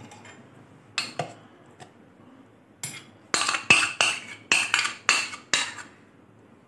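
Metal spoon clinking and scraping against a bowl and a glass blender jar as vanilla ice cream is spooned in: two clinks about a second in, then a quick run of about eight knocks and scrapes in the second half.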